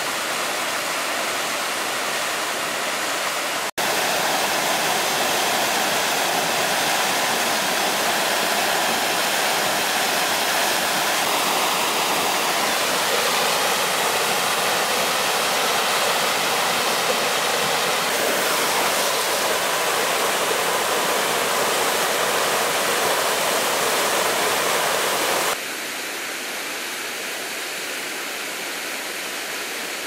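Partly iced-over waterfall, water still pouring down through the ice in a steady rush. The sound cuts out for an instant a few seconds in and steps down quieter about four seconds before the end.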